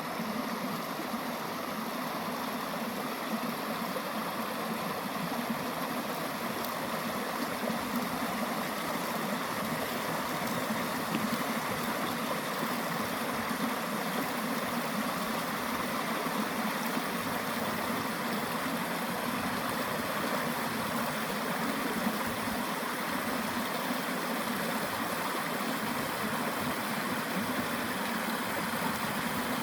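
Flowing water rushing steadily, an even noise without breaks.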